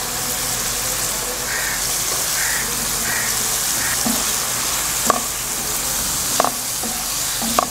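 Diced boneless chicken sizzling steadily in hot oil in a non-stick frying pan while a spoon stirs it, with the spoon knocking against the pan three times in the second half.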